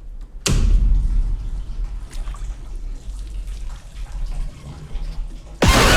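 Horror trailer sound design: a sharp hit about half a second in, then a low rumbling drone, cut by a loud noisy burst near the end.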